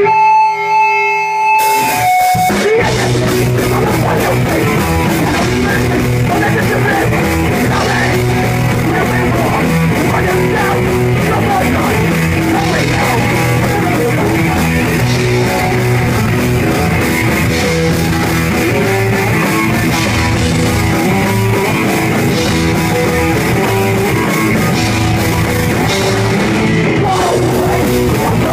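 Rock band playing with electric guitar and drum kit. A held guitar note rings alone for about two seconds, then the full band comes in and plays steadily.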